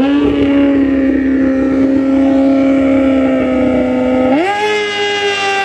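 Sport bike engine revved and held at high revs, a steady high-pitched drone, then climbing quickly to a higher, held pitch about four and a half seconds in.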